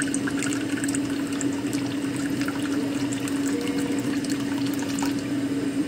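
A steady stream of dark liquid poured from a bottle into a small glass bowl, over a steady low hum.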